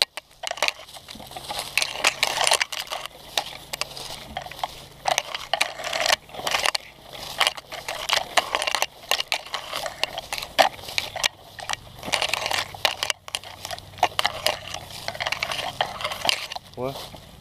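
Tall meadow grass swishing and crackling against the camera as it is carried low through the grass, a dense run of irregular rustles with no steady rhythm.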